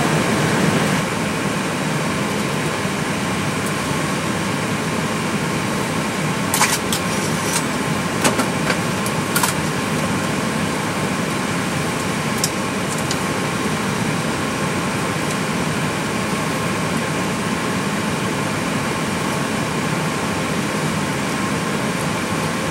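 Steady hum of air conditioning and equipment fans in an Airbus A320 cockpit with the engines shut down, with a faint steady whine. A few sharp clicks come about seven to nine seconds in.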